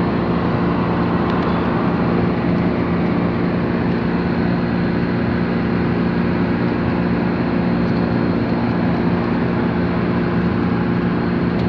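A vehicle running steadily: a constant low engine hum under an even rush of noise, with no change in level.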